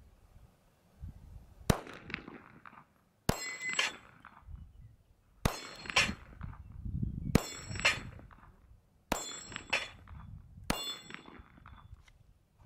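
Glock 43 9mm pistol fired six times at a slow, even pace, the shots one and a half to two seconds apart. Most shots are followed a fraction of a second later by the clang of a hit steel target plate ringing.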